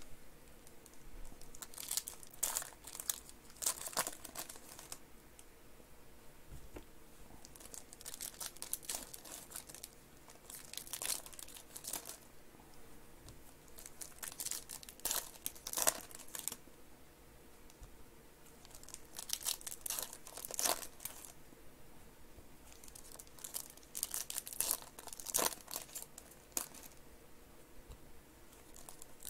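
Foil wrappers of Panini Donruss Optic basketball card packs being crinkled and torn open by hand. The crinkling comes in bursts of a second or several, every few seconds, with quieter handling between.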